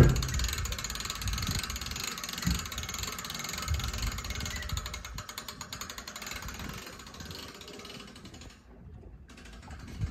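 Hand-cranked boat trailer winch ratcheting: a fast, continuous run of pawl clicks as the handle is turned, with a few dull knocks, stopping suddenly about eight and a half seconds in.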